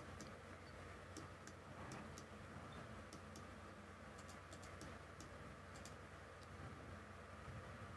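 Faint computer mouse clicks, irregular and often two close together, over a low room hiss: objects being picked one after another with the AutoCAD trim command.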